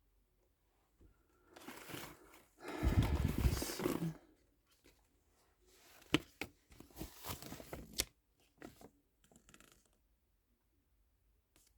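Packaging being handled and torn open: rustling and crinkling, with one loud rustling burst about three seconds in, then a few sharp clicks and lighter rustles.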